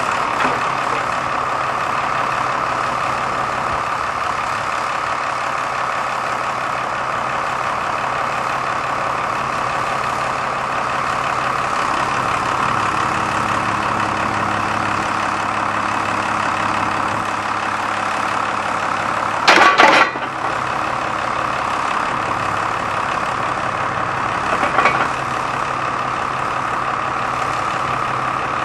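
The baler's 5.9-litre Cummins six-cylinder turbo diesel running steadily. A lower tone joins in for several seconds past the middle, and a short, loud burst of noise breaks in about two-thirds of the way through.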